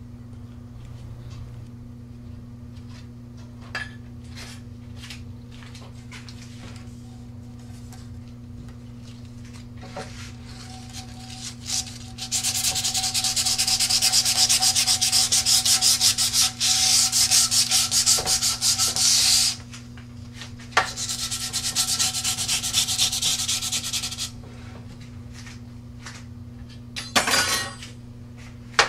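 Hand sanding with sandpaper, scuffing the surface of a fiberglass rocket airframe tube along a fin root to key it for epoxy fillets. There are two long spells of fast back-and-forth rubbing strokes, beginning a little before halfway and again a few seconds later.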